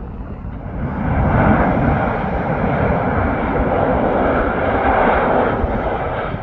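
Engines of an arriving airliner passing close on its landing, the noise swelling about a second in, holding, and easing off near the end.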